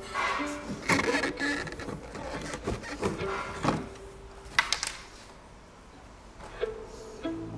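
Irregular knocks, clicks and short scrapes of things being handled, with a quieter stretch in the second half.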